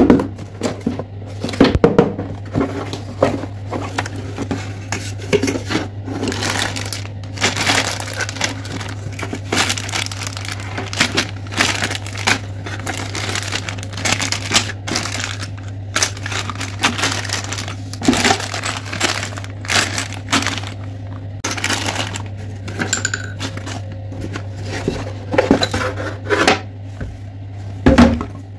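Clear plastic zip bags crinkling and rustling as they are handled, with the wooden puzzle pieces inside clacking against each other in irregular bursts. A steady low hum runs underneath.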